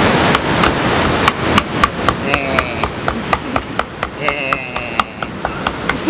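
Pointed metal tool stabbing repeatedly into the top of a green coconut, sharp knocks at about three to four blows a second as the hard shell resists.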